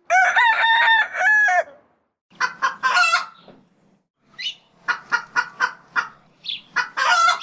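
A rooster crowing once, then a run of short clucks at about three a second.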